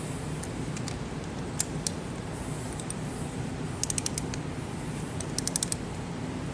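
A ratchet wrench on a long extension clicking in two short quick runs, about four and five and a half seconds in, as the injector hold-down bolts on a 6.7L Cummins head are tightened. A steady low hum sits underneath.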